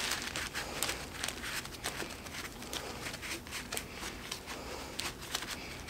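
A rag scrubbing and wiping inside a metal tool housing, with the plastic sheeting under it crinkling: a run of faint, irregular rustles and small clicks.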